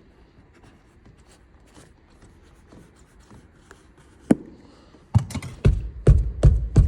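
Faint handling noise, then a sharp knock about four seconds in, followed near the end by a quick run of loud knocks and clatter, about two or three a second.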